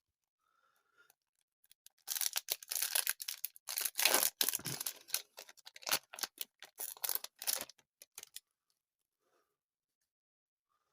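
Paper crinkling and rustling in quick, irregular bursts for about six seconds as Wacky Packages sticker cards are handled, loudest in the middle.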